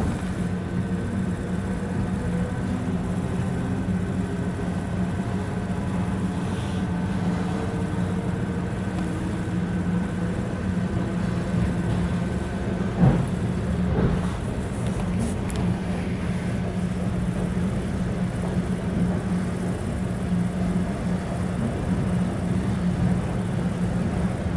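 Steady running noise of an ED4M electric multiple unit heard from inside a passenger car: a low rumble of wheels and running gear on the rails, with a faint steady tone that drops out about halfway. Just after halfway there is a sharp clunk, and a softer one about a second later.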